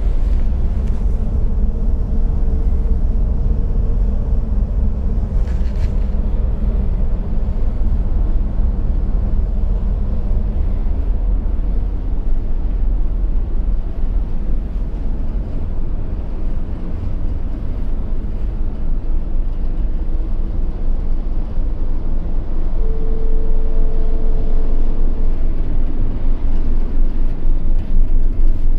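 Steady low rumble of a large car ferry's engines and hull as the ship gets under way, heard from inside the ship. A brief faint tone sounds late on.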